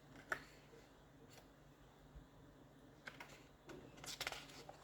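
Quiet handling of a paperback colouring book's paper pages: a single soft click early on, then a run of light rustles and clicks in the last second and a half as a page is turned.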